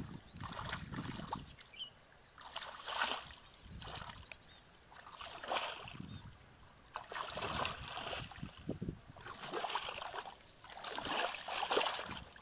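Shallow muddy water sloshing and splashing as a person wades through it and gropes for fish by hand. The sound comes in about six separate bursts, one every second or two, with quieter gaps between.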